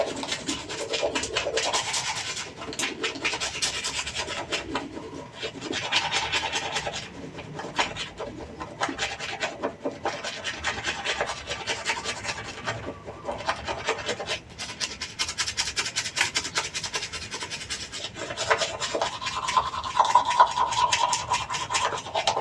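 Manual toothbrush scrubbing teeth: fast back-and-forth bristle strokes in bursts with brief pauses, with wet, foamy mouth sounds.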